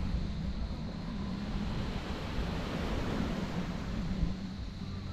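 Wind rumbling on the microphone over a steady wash of sea surf, with a faint steady low hum underneath.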